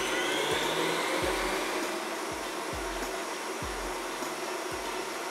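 Kenwood Cooking Chef stand mixer running at maximum speed, its balloon whisk beating eggs and sugar into a foam. The motor's whine rises over the first second as it comes up to speed, then runs steady.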